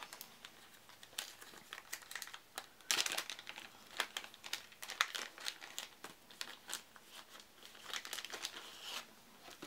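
Plastic shrink-wrap on a pack of game cards crinkling and tearing as it is unwrapped: irregular crackles, with louder bursts about three and five seconds in.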